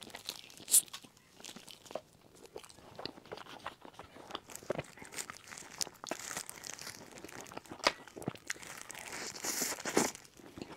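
Close-miked eating of a soft, glutinous cream-filled dessert ball with Oreo crumbs: bites and sticky, wet chewing with many small mouth clicks, a few sharper and louder than the rest.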